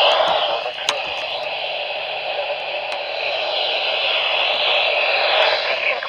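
Weather-band radio receiver hissing with steady static and no voice coming through, the sound thin and narrow like a small radio speaker. A single sharp click about a second in.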